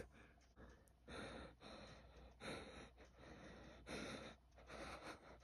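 Soft breathing close to the microphone: a run of short, faint breaths, about one every half second or so.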